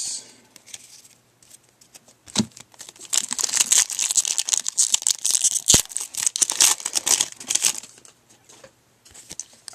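Foil wrapper of a baseball card pack being torn open and crinkled: a sharp snap, then several seconds of dense crackling.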